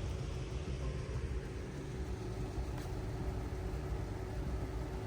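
Off-road vehicle engine idling steadily with a low rumble.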